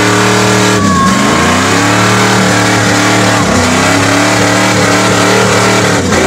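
An old jeep's engine is held at high revs as the jeep churns through a deep mud pit. Its pitch drops briefly and climbs back about a second in, again around the middle, and once more near the end.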